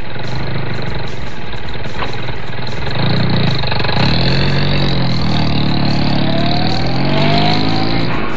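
Vehicle engine running and revving, its pitch swelling up and down, with a whine that climbs steadily over about two seconds near the end.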